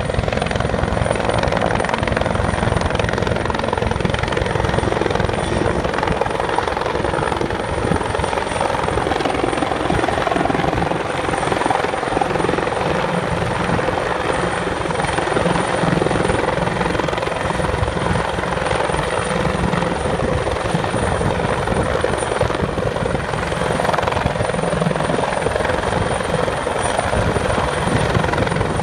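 CH-146 Griffon twin-turboshaft helicopter hovering low with a slung load, a steady close-up rotor chop and turbine noise that holds level throughout.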